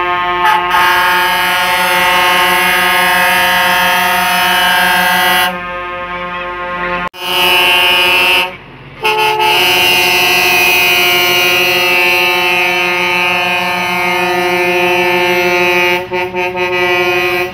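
Truck air horn blowing long, loud, steady blasts, with a short break about halfway through and a stuttering cut-off near the end.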